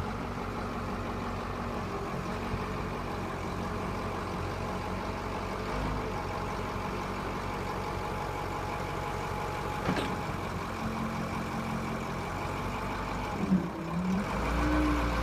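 Grove LT409 forklift's diesel engine running steadily, with a sharp knock about ten seconds in. Near the end there is a brief loud spike, and then the engine runs louder and deeper.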